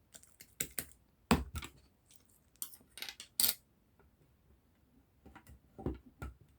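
Bubble-filled slime being pressed and squeezed by hand, its trapped air bubbles popping in small clusters of sharp clicks and crackles with short quiet gaps between.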